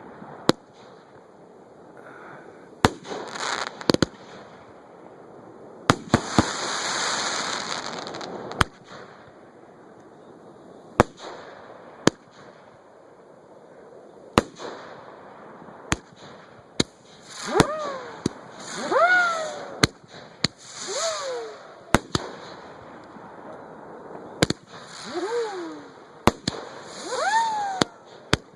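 Fireworks going off close to the launch site: sharp reports of bursting shells every second or two, a hissing, crackling burst about six seconds in, and several whistles that fall in pitch in the second half.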